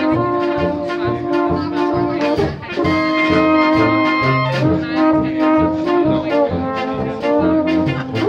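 Small brass band playing a polka live, trumpets and other horns carrying the tune over a steady beat in the bass.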